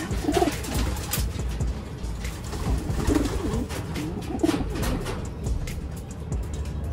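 Domestic racing pigeon giving short, low coos about three times while a hand is pushed under it in its nest bowl, the sound of a sitting bird disturbed on its eggs and newly hatched squabs. Light clicks and rustling of handling against the wire cage and coir nesting come between the calls.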